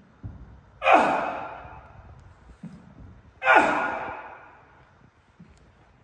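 A man's forceful exhales, one with each explosive rep of a dumbbell lunge-to-knee-drive: two sharp breaths about two and a half seconds apart, each trailing off, with faint low thumps between them.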